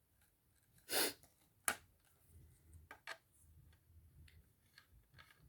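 Handling noises while assembling an unboxed product: a short burst of noise about a second in, a sharp click just after, then soft clicks and light rustles of parts being handled.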